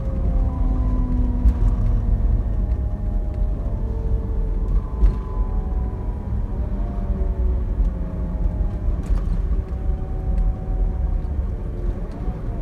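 Inside the cabin of a Van Hool TX16 Alicron coach on a Scania K360EB4 chassis under way. The engine and road make a steady low rumble, and several whining tones drift slowly up and down in pitch, with a few light rattles.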